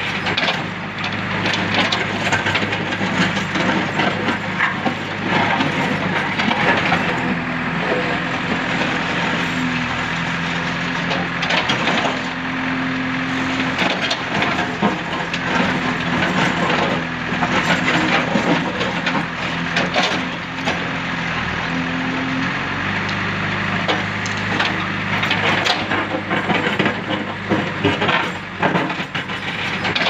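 JCB 3DX backhoe loader's diesel engine running under hydraulic load, its note rising about a quarter of the way in and settling back about three quarters through, while the backhoe bucket scrapes and crunches through a pile of broken concrete rubble with frequent clattering of chunks.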